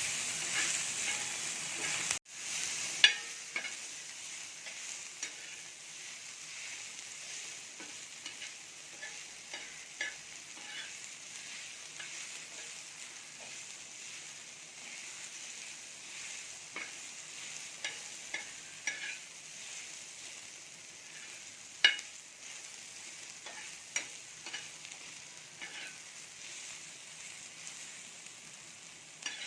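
Chopped onion and tomato frying in hot oil on a tava, a steady sizzle, with a spatula stirring and scraping that gives scattered sharp clicks and taps. The sizzle is louder for the first two seconds, then breaks off briefly and carries on more quietly.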